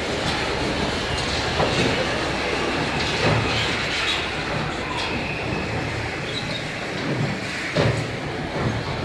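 Electric bumper car running, heard from inside it: a steady rattling rumble, with a few short knocks and scrapes along the way.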